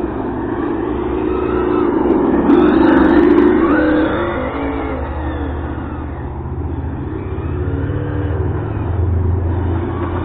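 Hobao Hyper GT-B 1/8 RC car running, its engine-sound module giving a simulated engine note that revs up and down with the throttle, loudest a few seconds in, over a steady low hum.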